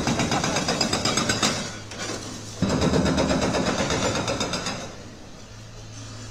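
Excavator demolishing a concrete building: rapid, evenly repeated mechanical hammering on concrete, breaking off briefly about two seconds in, resuming, then stopping about five seconds in, leaving the steady low hum of the machine's diesel engine.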